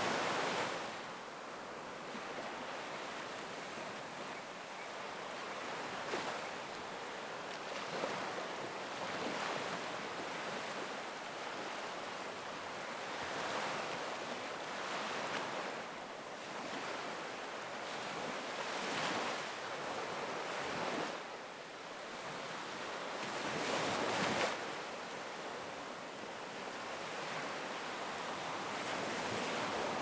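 Black Sea surf washing onto a beach, with waves breaking and swelling louder every few seconds. The loudest break comes about three-quarters of the way through.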